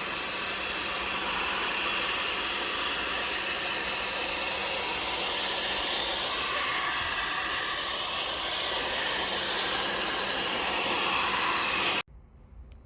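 Hand-held hot-air blower running steadily, warming the 3M adhesive under a carbon fiber trim overlay; it stops abruptly about a second before the end.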